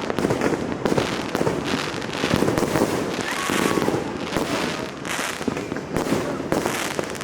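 Dense, unbroken barrage of New Year fireworks and firecrackers, many bangs and pops overlapping with no pause.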